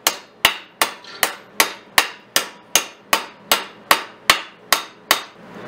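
Harbor Freight ball-peen hammer beating a small piece of sheet steel over the open end of a steel pipe, doming it. About fourteen evenly paced metallic blows, roughly two and a half a second, each ringing briefly, stopping shortly before the end.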